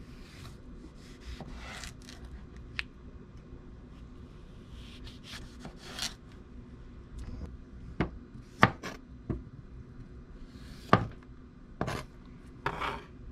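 Chef's knife slicing cucumber and radish on a plastic cutting board: irregular knife taps against the board with soft blade-on-vegetable rubbing, the sharpest taps clustered in the second half.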